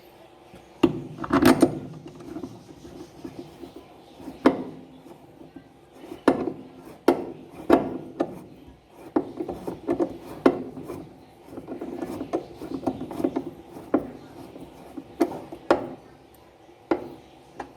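Irregular knocks, clicks and scraping of hand-work on washing-machine parts as the motor is fitted onto its base, with about twenty separate sharp knocks spread unevenly and rubbing sounds between them.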